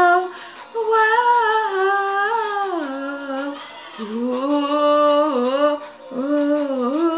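A young woman singing long, drawn-out "whoa" notes in three slow, held phrases with short breaths between them, the pitch sliding down at the end of each phrase.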